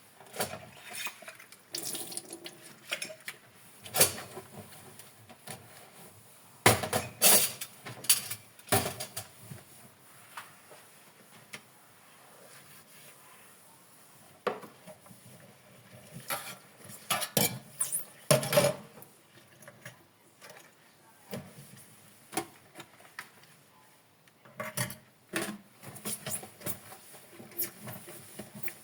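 Dishes and cutlery being handled while washing up: irregular clinks and knocks in bunches, with a quieter pause near the middle.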